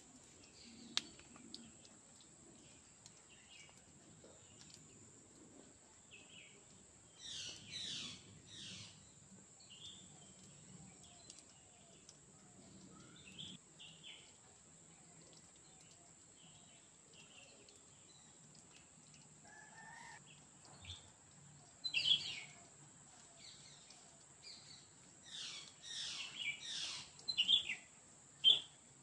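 Wild birds chirping and calling in short bursts, in clusters about a quarter of the way in and again near the end, over a faint, steady, high-pitched drone.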